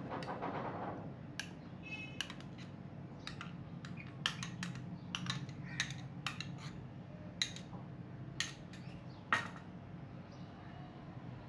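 Irregular sharp clicks and knocks of ice being tipped into a plastic insulated tub, the loudest knock near the end, over a steady low hum.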